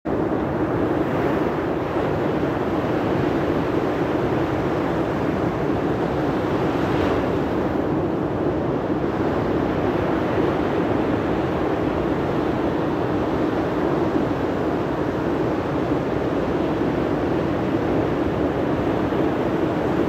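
Steady, even rushing of ocean surf breaking on a sandy beach.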